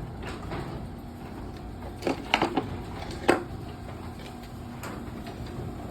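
Chamberlain LiftMaster belt-drive garage door opener running a test cycle on a newly fitted toothed rubber belt, a steady motor-and-drive noise with the door moving along its track. A few sharp knocks and clunks come between about two and three seconds in.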